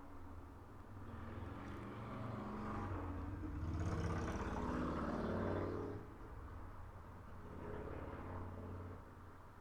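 A motor vehicle's engine hums, growing louder toward the middle and then fading away, like a vehicle passing by.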